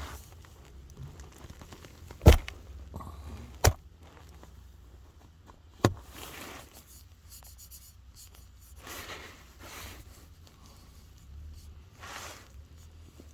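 Three sharp clicks or knocks, the first the loudest, among soft rustling and handling noise in a small enclosed space.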